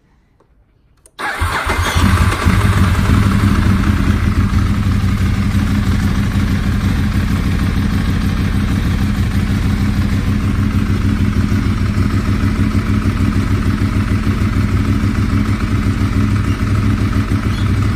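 A 2009 Ducati 1198 S's 1198 cc L-twin engine warm-started an hour after last running: it catches about a second in with no long cranking, runs a little louder for a moment, then settles into a steady idle at about 1,500 rpm.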